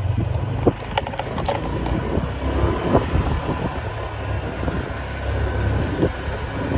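Riding noise from a bike on a street: a steady low rumble with scattered clicks and rattles, busiest between one and two seconds in.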